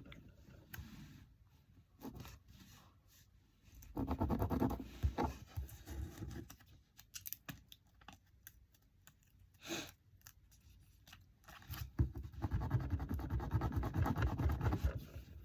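A fingertip rubbing vinyl lettering down onto card in place of a scraper: a scratchy rubbing in two longer stretches, one a few seconds in and one near the end, with quieter paper handling and a brief sharp scrape between them.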